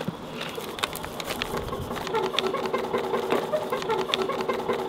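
Plastic wrapping crinkling and crackling as it is pulled off a machine by hand. A steady low pulsing tone joins in about a second and a half in.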